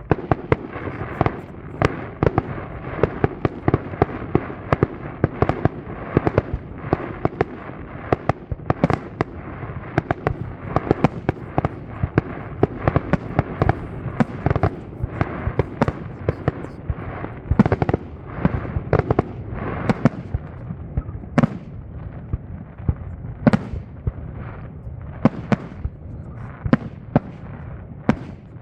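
Aerial fireworks display: shells bursting in rapid, near-continuous succession over a steady rumble of reports. The barrage thins to more separate bangs in the last third.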